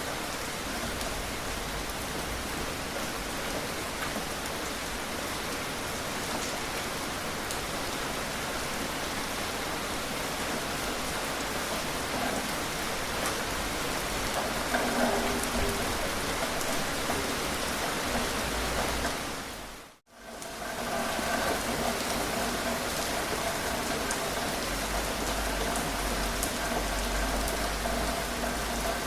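Steady rain falling, an even hiss with scattered drops. About twenty seconds in it fades out almost to silence for a moment and then fades back in.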